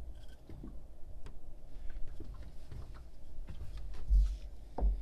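Handling noise: scattered light clicks and taps, then two dull low thumps about four seconds in as the camera is handled.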